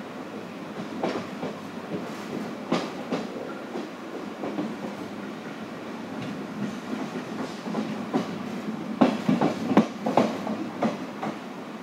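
Moving passenger train: the steady rumble of wheels on rails with irregular sharp clacks over rail joints, and a run of louder clacks about nine to ten and a half seconds in.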